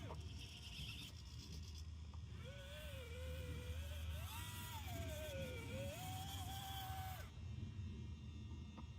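Small electric motors of a 3D-printed radio-controlled model excavator whining as it digs. The whine starts about two and a half seconds in, rises and falls in pitch as the controls are worked, and cuts off a little after seven seconds.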